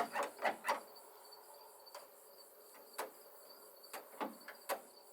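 Sharp metallic clicks and knocks from a hood latch being worked by hand and with a screwdriver while it fails to release: a quick cluster in the first second, then single knocks about once a second. A faint, steady, high insect trill runs underneath.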